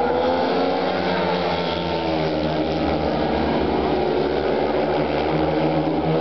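A pack of four 500 cc single-cylinder speedway motorcycles racing at high revs, several engines overlapping with their pitch wavering as they go through the bends and down the straight.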